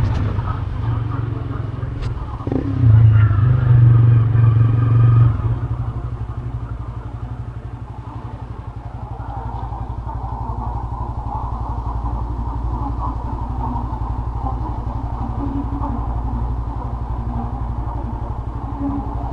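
A motor vehicle's engine running, louder for a couple of seconds about three seconds in, then settling to a steady hum.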